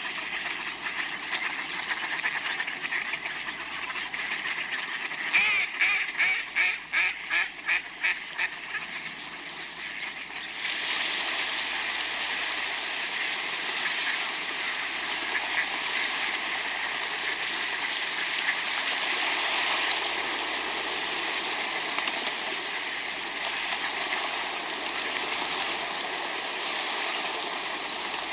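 Ducks quacking and splashing, wings flapping on the water. About five seconds in comes a quick run of about a dozen sharp beats, roughly four a second, and from about ten seconds on a steady wash of splashing water runs under the calls.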